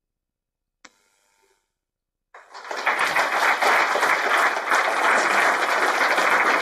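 Audience applauding: a short click about a second in, then clapping that starts a little over two seconds in and swells quickly to a steady, loud round.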